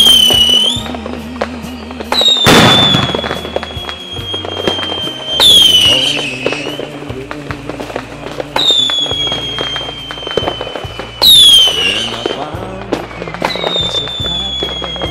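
Fireworks sound effect: whistles about every three seconds, several dropping sharply in pitch as they start, and one loud bang about two and a half seconds in, over instrumental music with a steady bass line.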